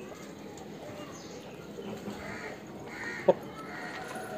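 A few short, harsh bird calls about two to three seconds in, over a low background, followed just after three seconds in by one sharp, loud knock.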